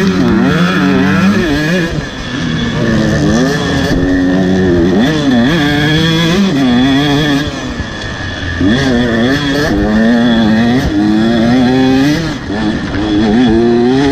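Motocross dirt bike engine revving hard and easing off again and again as it is ridden around a track: the pitch climbs, drops and climbs again many times, with short lulls where the throttle closes.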